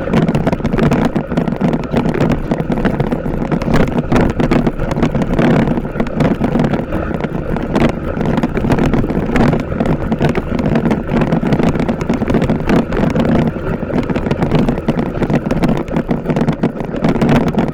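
TVS Apache RTR 160 4V motorcycle under way, its single-cylinder engine running steadily under heavy wind buffeting on the microphone.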